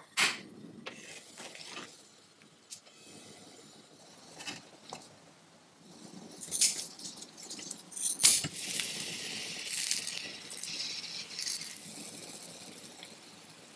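Kitchen sounds: a sharp click of a gas stove just after the start, a few scissor snips cutting cooked sausages, then a knock about eight seconds in and sausages sizzling in a frying pan for several seconds, fading near the end.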